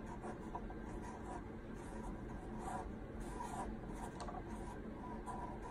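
Marker pen tip scratching on paper as letters are outlined, in short, soft strokes with small gaps between them.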